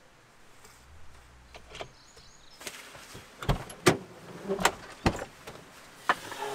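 Ford E350 van's hinged side door being unlatched and swung open: a few sharp metallic clacks from the handle and latch, then a short creak near the end.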